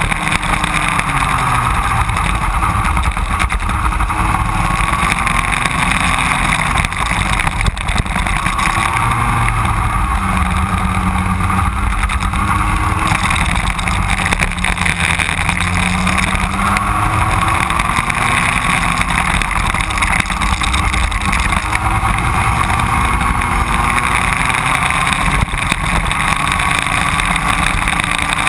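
Racing kart engine running hard on track, its pitch rising and falling again and again as the driver accelerates and lifts through the corners, over a constant rumble.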